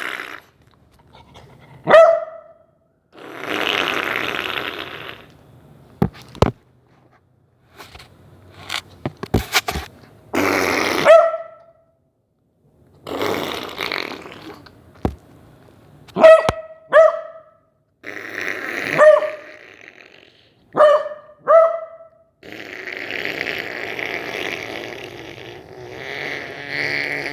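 A puppy gives short, sharp yelping barks, singly and in pairs, again and again. Between them come longer rasping snore sounds, the sound that sets it off, and a few sharp clicks around the middle.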